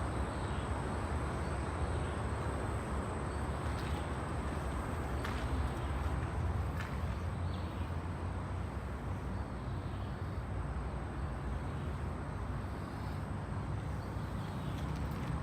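Steady low rumble of outdoor background noise with a faint high steady whine and a few soft clicks.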